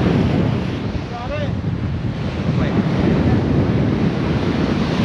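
Strong wind buffeting the microphone in a steady low rumble, with waves washing underneath.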